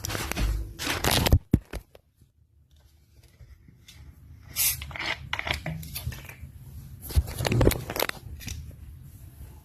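Intermittent crinkling and scraping handling noises with a few sharp clicks about a second in, a short pause, then more scattered crackles.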